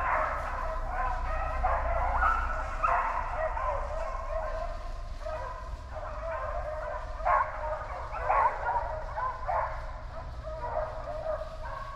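A pack of hunting hounds baying and yelping in chorus while running a deer, call upon call overlapping with no pause. A steady low rumble sits underneath.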